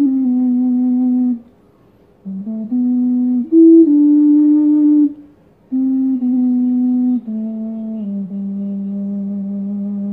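A double bass G ocarina playing a slow melody of low, pure, held notes in three short phrases with brief breaths between them. The last phrase steps down to one long low note that stops near the end.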